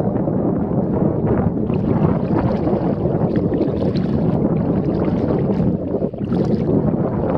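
Steady wind noise on the microphone over river water moving around a kayak.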